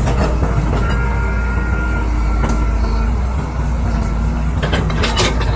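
Hydraulic excavator's diesel engine running steadily under load as the bucket digs into the soil and lifts a load. A brief clatter about five seconds in.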